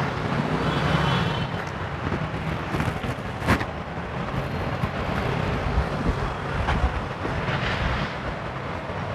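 Steady outdoor road-traffic background, with a sharp click about three and a half seconds in as parts under the hood are handled.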